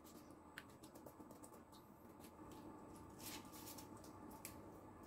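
Very faint, scattered soft taps and brushing of a silicone pastry brush dabbing egg wash onto puff pastry, with the odd light click as it is dipped in a small glass bowl.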